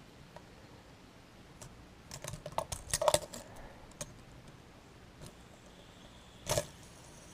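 Fidget spinners being handled: a quick run of small hard clicks and rattles about two to three seconds in, a single click, then one louder clatter near the end.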